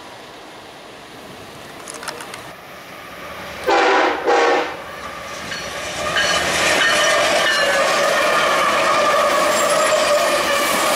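BNSF freight locomotive horn sounding two short blasts about four seconds in. Then the lead diesel locomotives run past close by, a loud steady rumble of engines and steel wheels on rail.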